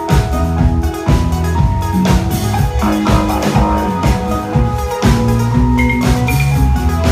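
Live band playing a synth-pop song, with a steady drum beat under sustained bass and keyboard notes.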